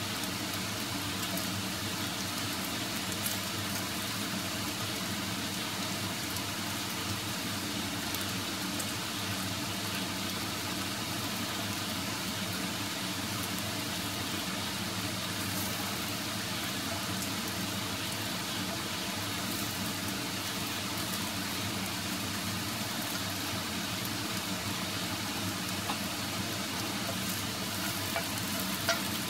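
Beaten eggs sizzling steadily in hot oil in a non-stick frying pan, stirred and turned with a wooden spatula, with a few light knocks near the end.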